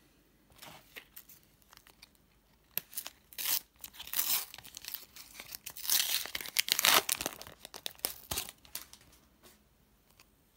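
Sticker packet wrapper torn open and crinkled by hand, in a run of irregular crackling rips that are loudest about six to seven seconds in and die away near the end.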